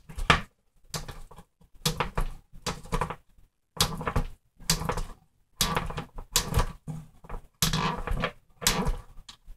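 Irregular clicking and rattling of plastic RC short course truck parts being handled and screwed together, in short bursts about one or two a second.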